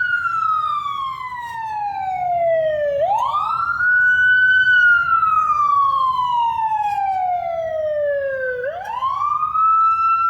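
A wailing siren sample played back through a Doppler Shifter effect set to pass by on the right. Its pitch slides slowly down, then rises sharply again twice, about 3 seconds and 9 seconds in.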